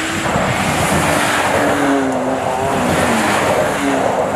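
Ram 1500 RHO pickup's twin-turbo 3.0-litre Hurricane High Output inline-six running hard, its pitch rising and falling as it revs, over heavy tyre and road noise.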